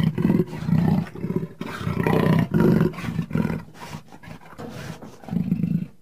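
Jaguar's sawing roar: a string of deep, grunting roars, about two a second, weaker in the middle, with one last loud roar near the end before the sound cuts off suddenly.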